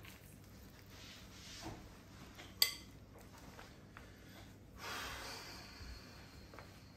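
Faint soft sounds of hands working sourdough dough in a glass bowl, with one sharp ringing clink against the glass about two and a half seconds in, then a brief soft rustle about five seconds in.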